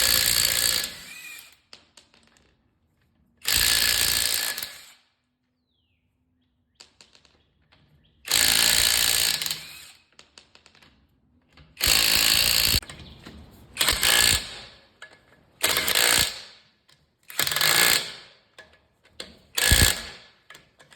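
Cordless half-inch impact wrench firing in about eight short hammering bursts of a second or so each, coming closer together in the second half.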